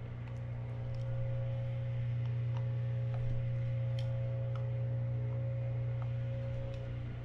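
A steady low hum from an unseen motor or engine, fading near the end, over a few faint sparse clicks of a small screwdriver working the side-plate screws on a Mitchell 302 spinning reel.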